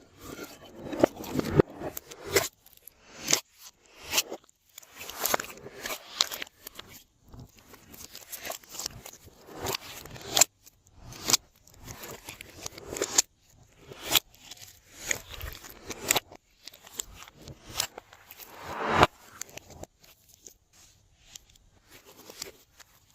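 Glossy slime being squished, stretched and folded by hand, making irregular sticky clicks and crackling pops with short pauses between them.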